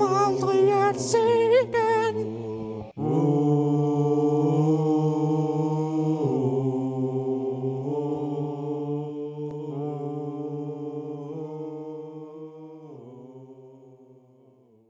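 Sung vocals finish a line of Danish lyrics, then, after a brief break, hold one long drawn-out "oooh". The note steps to a new pitch several times and fades out near the end.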